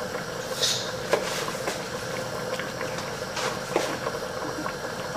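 Pot of red lentil soup bubbling on high heat, with scattered soft pops and clicks over a steady hum.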